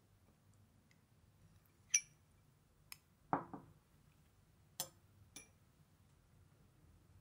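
Metal spoon clinking against an emptied glass dessert cup, four sharp ringing clinks. About three seconds in there is one duller knock.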